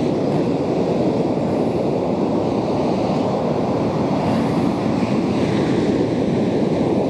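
Sea surf washing onto a beach in a steady rush, with wind buffeting the microphone.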